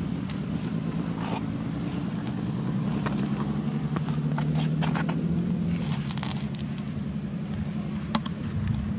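A low, steady engine hum with scattered light clicks over it.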